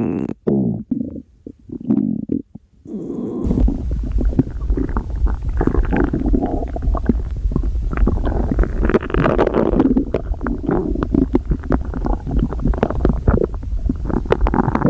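Human stomach growling and gurgling. Short gurgles with pauses between them give way, about three and a half seconds in, to a constant deep rumble thick with quick pops and bubbling gurgles.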